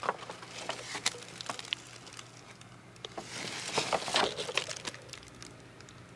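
Handling of a cardboard bakery box and a plastic-wrapped takeout food container: scattered light clicks and taps, with a louder rustle around four seconds in, over a faint steady hum.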